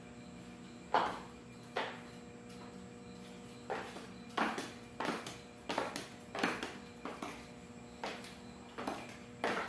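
Stiletto heels clicking on a concrete floor in irregular steps, about a dozen sharp clicks that come closer together after the first few seconds, with a faint steady hum behind.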